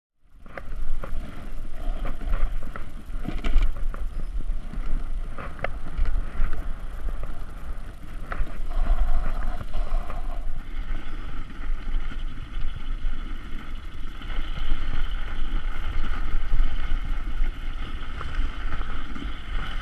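Wind rumbling on the microphone outdoors, with a few sharp knocks and clicks in the first half. From about ten seconds in, a steady higher hum joins.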